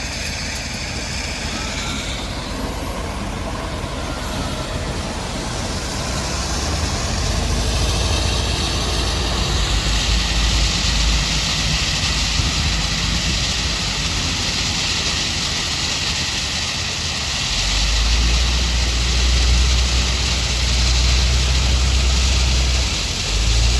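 Heavy machinery running: a deep diesel-engine rumble that grows louder about seven seconds in and again near the end, over a steady hiss.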